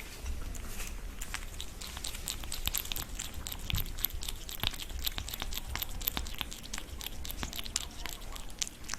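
A cat chewing food: a fast, irregular run of small clicks.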